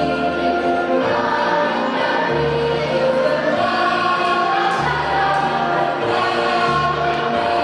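Children's choir singing with accompaniment, over low bass notes that change about every second.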